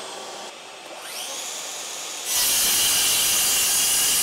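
Bosch GKS18V-25GCN brushless cordless circular saw, set to speed 6, spinning up with a rising whine about a second in. A little past two seconds it bites into a stack of boards and runs on, cutting steadily under full load.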